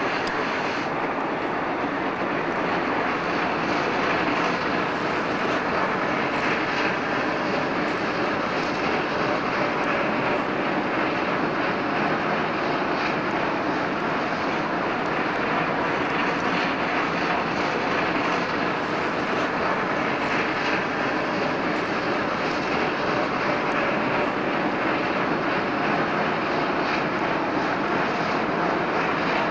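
Two Swiss steam locomotives, a C 5/6 and an A 3/5, working hard up the grade at the head of a train: a steady roar of exhaust and rolling train.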